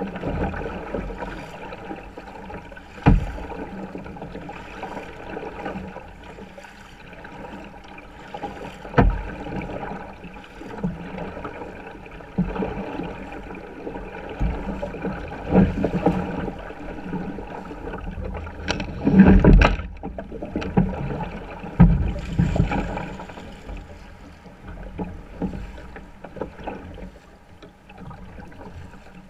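Double-bladed kayak paddle stroking through sea water, a steady run of splashing and dripping with a few sharp knocks. The loudest burst comes about two-thirds of the way through.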